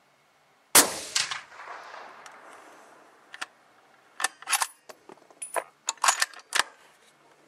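A suppressed .308 Winchester bolt-action rifle (Marlin XS7 with a Stalon Whisper suppressor) fires once about a second in: a sharp crack, a second report right after, and a fading echo. A run of short metallic clicks and clacks follows, the rifle's bolt being worked.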